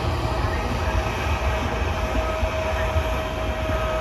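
Train running on the line: a steady low rumble with a constant thin whine above it.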